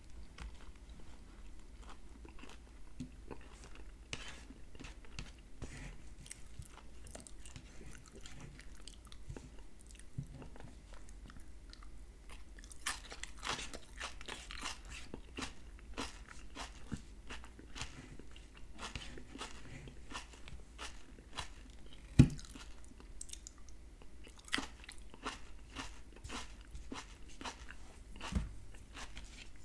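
Close-miked eating sounds: baked salmon and onions being chewed, with a fork clicking and scraping on the plate. A string of small clicks and crackles, with one much louder sharp tap about three quarters of the way through.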